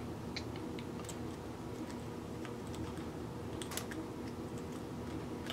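Small, irregular metal clicks and taps as a tiny nut, spring and pawl pin are worked by hand into a metal shaper's ram with a small tool, over a steady low hum.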